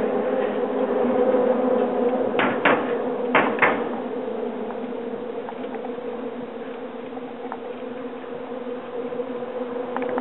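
A steady buzzing hum while riding a bicycle across a bridge walkway, with a few sharp knocks clustered about two and a half to three and a half seconds in.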